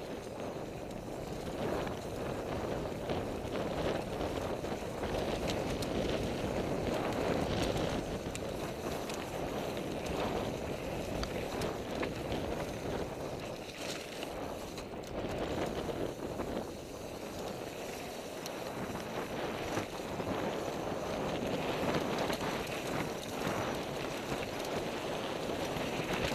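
Wind rushing over a helmet-mounted camera microphone and an NS Bikes Soda mountain bike's tyres rolling fast over a dirt trail, with steady clicking and rattling from the bike over bumps. The loudness swells and dips with speed and terrain.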